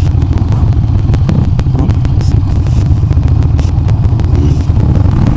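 Harley-Davidson Iron 883 Sportster's air-cooled V-twin running at low road speed, a steady low rumble, with wind noise buffeting the helmet-cam microphone.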